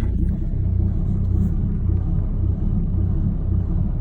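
6.7-litre Cummins inline-six turbo-diesel idling rough with an uneven lope, a steady low rumble that pulses irregularly. The lope sounds like a cam job and is worst at low speed in reverse or drive; the cause is unknown, and the owner has ruled out the emissions system.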